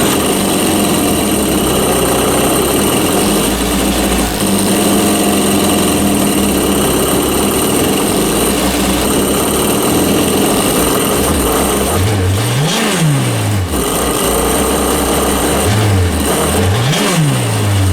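Kawasaki STX-12F jet ski's four-stroke four-cylinder engine running steadily just after starting. Near the end it is revved up and let back down twice.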